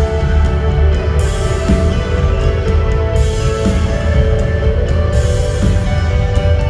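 Indie rock song playing: sustained chords over heavy bass, with a bright hiss swelling up about every two seconds.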